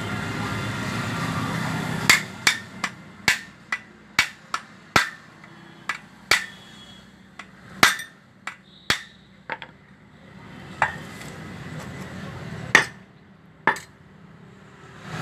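Hammer tapping the shaft into the body of a 1 HP Cello jet pump: about twenty sharp, irregular metal knocks with a short ring, starting about two seconds in and stopping shortly before the end.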